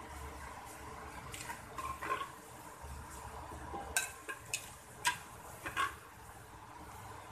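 A serving spoon scraping inside a clay cooking pot and knocking against the pot's rim and a ceramic plate as thick cooked keema is ladled out. There are a few soft scrapes in the first half and a run of sharp clinks from about four to six seconds in.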